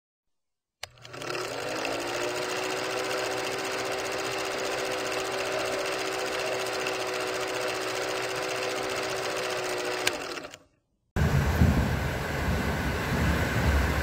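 Old film projector sound effect: it starts with a click, spins up to a steady whirr and rattle, then clicks again and fades out. After a moment's silence, rain falls steadily with low rumbles for the last few seconds.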